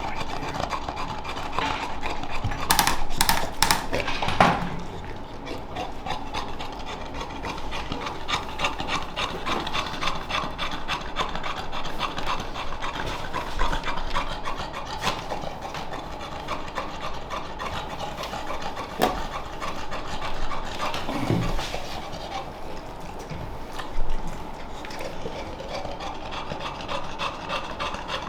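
Hands rubbing and kneading over a bulldog's short coat, a rough, fast, irregular scratching. It is louder for a couple of seconds a few seconds in.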